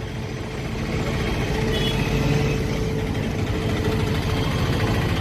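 An engine running steadily: a low, even rumble with a constant hum above it.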